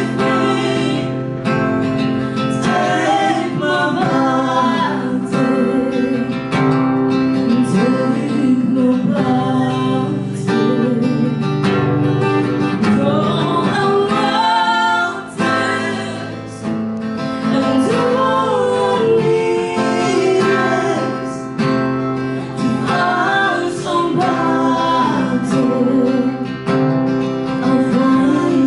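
Live acoustic song: an acoustic guitar strummed in a steady rhythm while a man and a woman sing.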